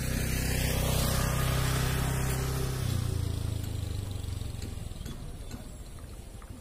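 A motor vehicle passing by: its engine hum swells to its loudest about a second in and fades away over the next few seconds.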